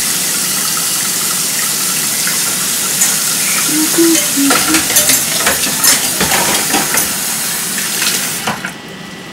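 Kitchen tap running steadily into a pan in the sink, with clinks of dishes and utensils; the water stops about eight and a half seconds in.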